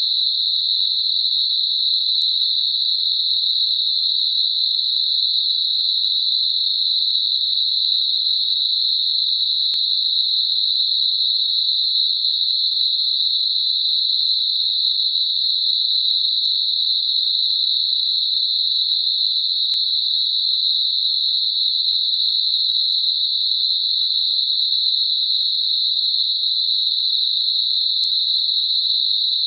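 Synthetic narrow-band noise centred on 4 kHz, a tinnitus masker: a steady, even, high-pitched hiss with no low end.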